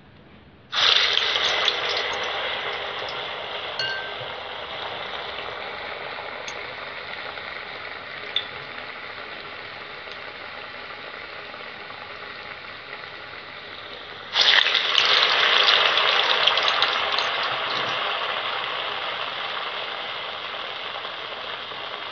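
Urad dal vadai dropped into hot sunflower oil in a kadai: a sudden loud sizzle that slowly dies down as it fries. A second vadai goes in about fourteen seconds later with another loud sizzle that fades again.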